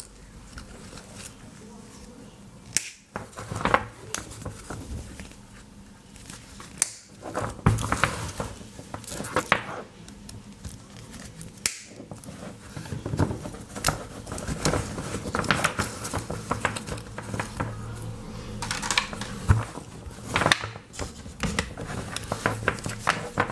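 USB-C cables being handled and bent by hand: irregular rustling with scattered sharp plastic clicks.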